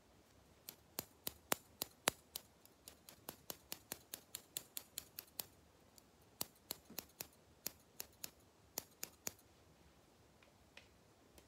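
Scissors snipping in a quick series of crisp clicks, about four a second, close to the microphone as if trimming bangs, with a short pause about halfway. Two single snips follow near the end.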